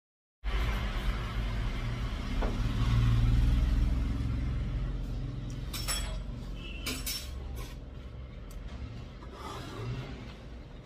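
A steady low rumble with two short slurps near the middle as a man sucks noodles up from chopsticks.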